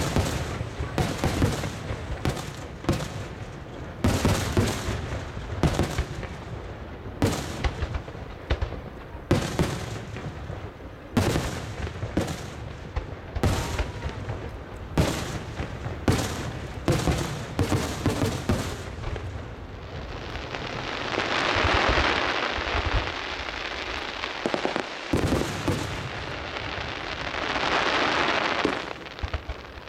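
Aerial fireworks shells bursting in quick succession, sharp bangs coming several a second for most of the time. In the last third the bangs thin out and a dense rushing noise swells and fades twice.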